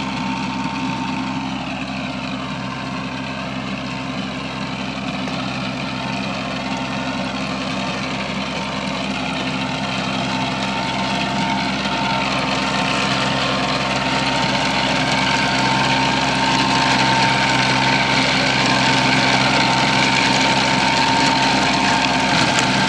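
Kubota NeoStar 21 hp compact tractor's three-cylinder diesel engine running steadily while it drives a rotavator tilling soil between cane rows. A steady high whine runs over the engine note, and the sound grows gradually louder through the second half.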